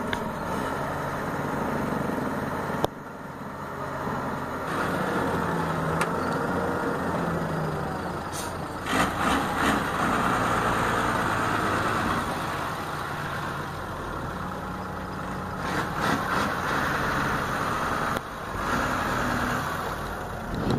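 Truck-mounted crane's diesel engine running as the boom hoists a transformer, its speed rising and falling with the lift.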